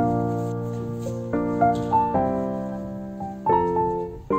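Background piano music: slow chords, each struck and left to fade.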